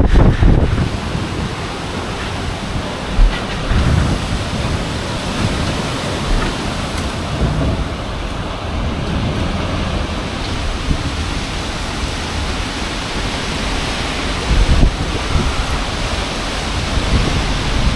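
Gale-force storm wind rushing and buffeting the microphone, a loud steady roar of noise with a heavy low rumble. It swells in stronger gusts about three seconds in and again around fifteen seconds in.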